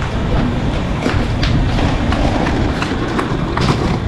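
Passenger express train running along a station platform: a steady rumble of the coach on the track, with several sharp clicks of the wheels over rail joints.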